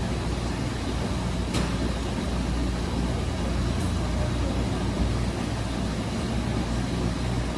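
Wascomat Senior W125 35-pound commercial washing machine running mid-cycle: a steady low motor hum and rumble, with a single click about a second and a half in.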